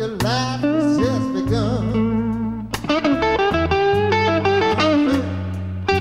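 Live electric blues band playing: bass and drums under a bending lead line, then from about three seconds in a quick run of electric guitar notes on a Stratocaster-style guitar.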